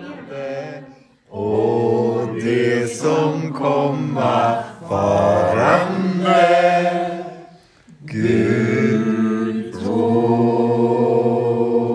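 A group of people singing a song together, unaccompanied, in long held phrases with short breaks about a second in and just before eight seconds in.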